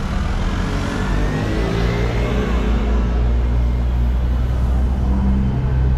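A motor vehicle's engine running close by, a steady low hum that settles in about a second and a half in, over general street traffic noise.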